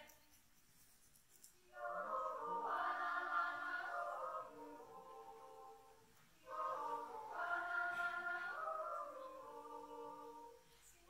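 Children's yodel choir singing a cappella. After a short pause, two sung phrases of held chords follow, each entering together and then fading away.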